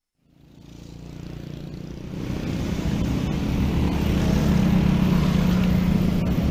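Road traffic: car and motorcycle engines running as vehicles creep past in a slow queue. It fades in from silence and grows louder over the first few seconds into a steady low drone.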